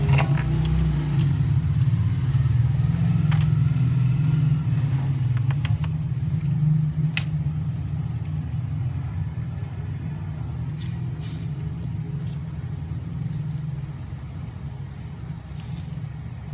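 Steady low rumble that slowly fades, with scattered light clicks and taps as a phone circuit board and a soldering iron are handled on a workbench.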